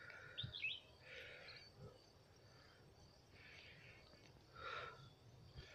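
Near silence: faint outdoor ambience with a few soft, brief hissing noises about a second apart.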